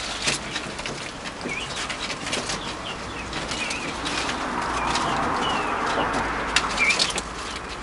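Young black grouse giving short, soft peeping calls over and over, with clicks and rustling among the willow leaves and twigs they are feeding on.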